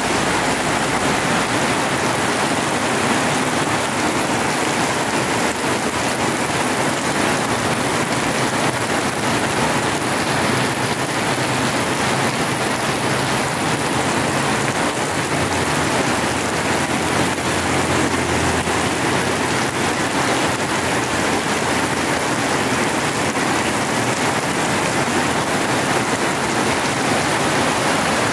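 Heavy rain pouring down onto a wet road: a steady, dense hiss with no let-up.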